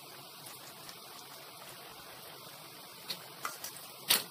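Shakarpara dough pieces deep-frying in oil in a steel pan: a steady sizzle, with a few sharp clicks near the end, the loudest just before the end.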